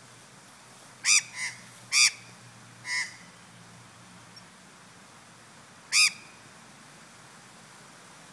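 Australian magpie squawking: five short, loud, harsh calls, four in the first three seconds and one more about six seconds in.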